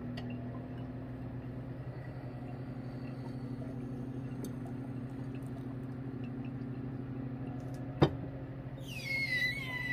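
Small electric pump humming steadily. About eight seconds in there is a single sharp knock. Near the end the vacuum filter funnel starts screaming: a high whistling squeal that falls steadily in pitch as air is pulled through the draining filter.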